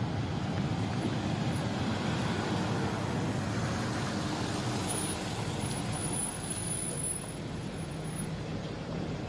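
Aurus limousine rolling with its brake pads squealing over steady road noise, a thin high squeal coming and going in the middle of the stretch.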